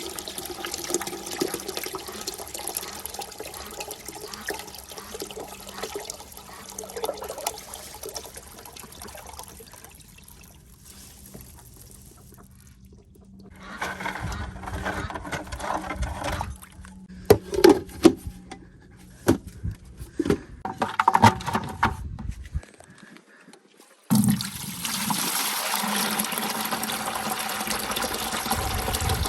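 Water running from an IBC tote's outlet into a plastic 5-gallon bucket, then stopping about ten seconds in. Several knocks and clunks follow as buckets are handled, and near the end the water runs again into the next bucket.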